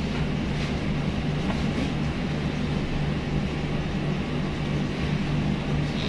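LG front-loading washing machine starting a Gentle Care test cycle, a steady hum with a hiss underneath.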